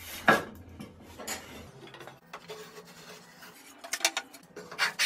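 A hand brushing shavings off a freshly hand-planed wooden strip on a workbench, with one sharp scrape just after the start, then scattered light knocks and clinks as the wood is handled.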